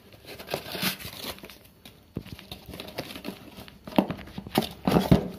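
Crinkling and rustling of a cardboard box and its plastic packing wrap being handled by hand while a bottle is pulled out, with louder crinkles near the end.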